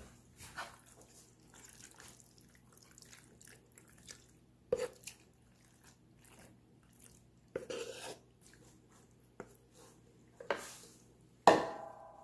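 Wooden spoon scooping saucy ziti from a bowl into a glass baking dish: a few soft, wet plops and knocks of pasta and spoon. Near the end comes a sharper knock that rings briefly, the loudest sound.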